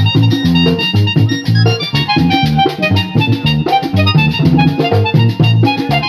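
Roland digital button accordion played, a fast melody of short notes over a pulsing bass line.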